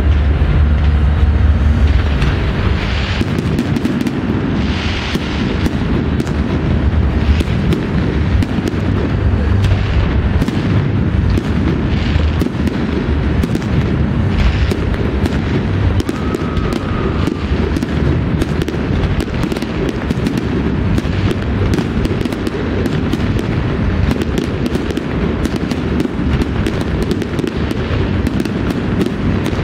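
Fireworks display going off: a dense, continuous barrage of bangs and crackling from many shells bursting, with sharp reports coming in quick succession.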